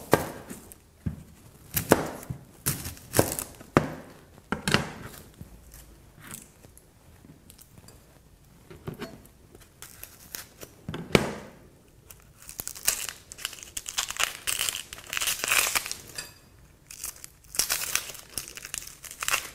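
Dry, papery onion skins crackling and tearing as onions are peeled by hand and with a kitchen knife, with a few sharp knocks of the knife on the cutting board. The crinkling grows denser in the second half.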